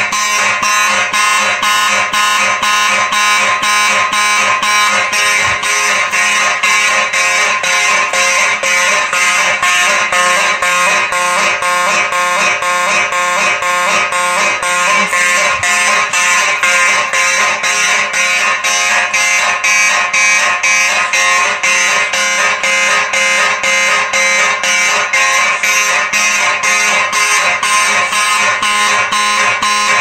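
Several Simplex fire alarm horns sounding together in alarm, driven by a Simplex 4004 fire alarm control panel. They make a loud, fast, even pulsing that goes on without a break.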